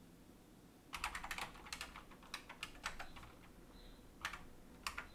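Typing on a computer keyboard: a run of quick, irregular key clicks that starts about a second in.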